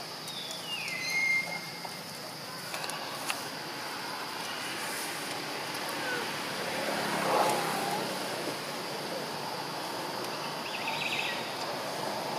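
Outdoor ambience: a steady high hum under a noisy background, with a few brief calls, one falling in pitch near the start, and a single sharp click a few seconds in.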